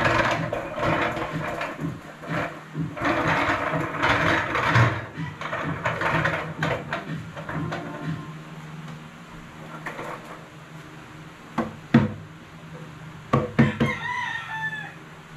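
Wooden table legs scraping and bumping on a tiled floor as the table is shifted about, followed by a few sharp knocks. Near the end, a rooster crows once, briefly.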